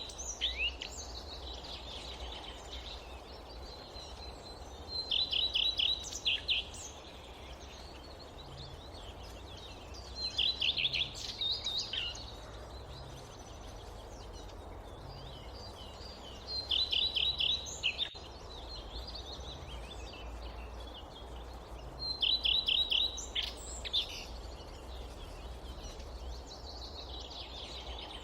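A songbird repeating the same short phrase, a quick run of high notes, about every five to six seconds, over a steady low rush of wind through the forest.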